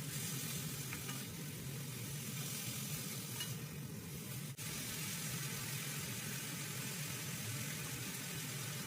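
Food sizzling steadily in a frying pan over a low, steady hum.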